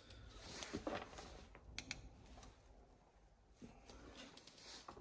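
Faint scraping and light metallic ticking of a steel pick working at the seal's retaining clip inside a rear shock absorber, with two sharp clicks close together about two seconds in.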